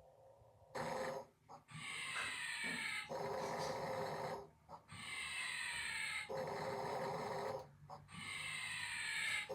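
Loud snoring, about three snore cycles roughly three seconds apart, each a rough snore followed by a breath that falls in pitch.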